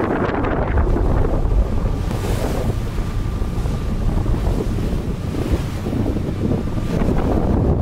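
Wind buffeting the microphone on a boat under way, over the steady rush of choppy sea water.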